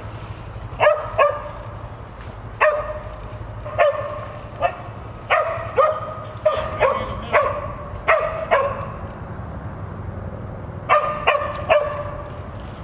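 West Siberian Laika barking treed at the base of a tree, sharp barks about one to two a second, with a pause of about two seconds before a last quick run of three.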